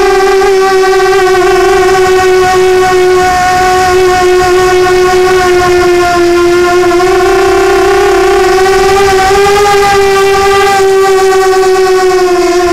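FPV racing quadcopter's brushless motors and propellers in flight, a loud steady whine that wavers slightly in pitch with the throttle, heard from the camera mounted on the quad.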